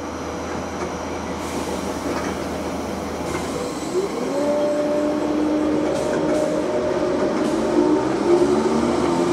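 Southern Class 313 electric multiple unit pulling away from the platform: a steady electrical hum, then about four seconds in a rising traction-motor whine that settles into several steady tones as the train gathers speed. A few faint clicks sound along the way.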